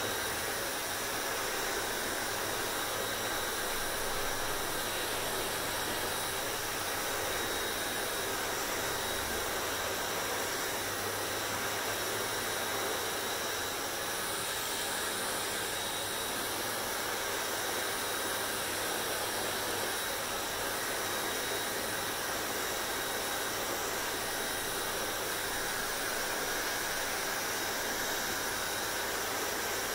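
Hair dryer running steadily, an even rush of blown air with a faint steady whine over it.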